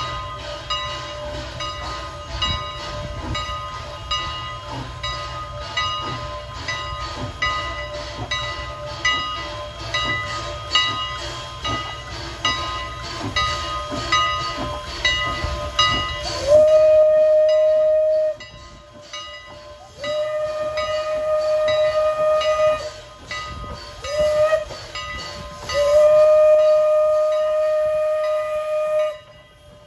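Steam locomotive #89, a 2-6-0 mogul, chuffing steadily as it works past, then about two-thirds in sounding its shrill former Pennsylvania Railroad banshee whistle in a long, long, short, long pattern: the standard grade-crossing signal. Each note slides up in pitch at its start.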